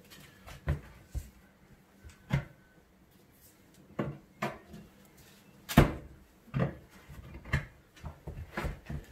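Steel tyre lever knocking and clanking against the steel rim of a tractor rear wheel as the tyre bead is levered on. Irregular sharp knocks, the loudest about six seconds in.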